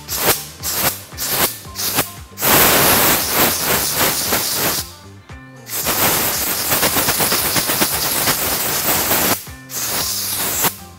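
Compressed-air blow gun blowing air through a paper motorcycle air filter element to blow out the dust, in two long blasts, about two seconds in and again from about six to nine seconds, with a shorter one near the end. Background music with a steady beat plays underneath.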